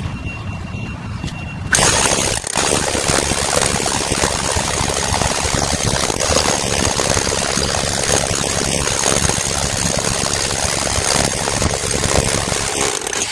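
Corded rotary hammer drill boring into concrete: it starts about two seconds in and hammers steadily, stopping just before the end.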